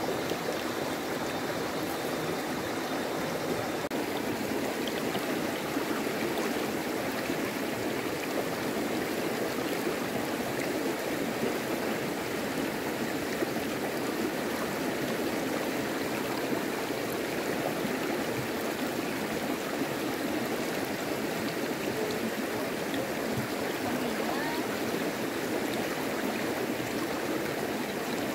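Running water rushing steadily, like a stream.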